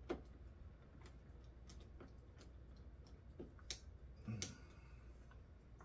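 Ratcheting hand screwdriver clicking faintly and irregularly as a screw is driven into a chair's headrest bracket, with a couple of sharper clicks about halfway through.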